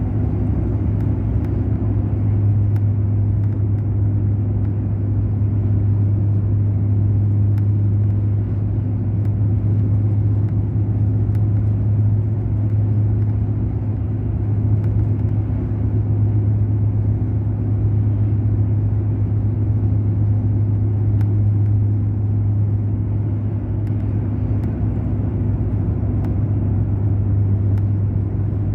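Mercedes-Benz O500 RSD coach's diesel engine running steadily at cruise, a constant low drone that holds its pitch throughout.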